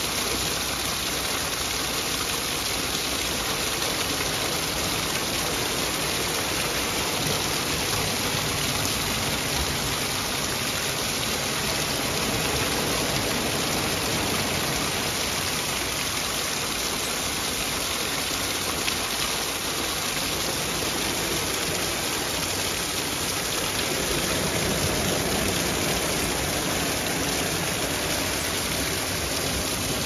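Small rain-fed stream cascading and splashing down over rocks, a steady rushing of water.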